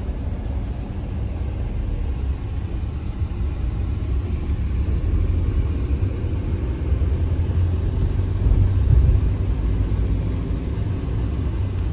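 Car driving, a steady low road-and-engine rumble that swells slightly a little past the middle.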